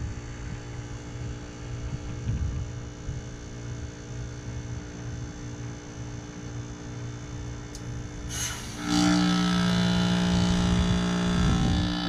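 A 2006 3-ton Heil heat pump running steadily through its defrost cycle. Near the end there is a click, then a sudden loud hiss of refrigerant with a strong hum for about three seconds that cuts off: the reversing valve shifting as the unit comes out of defrost.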